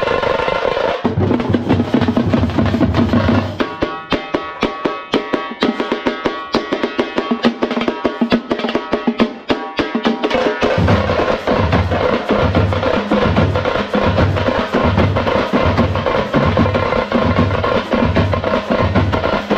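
A festival band of tamte frame drums beaten with sticks, playing fast, dense strokes. Through the middle a held pitched melody sounds over rapid rolls. After that the drumming settles into a heavy, regular beat of about one and a half strokes a second.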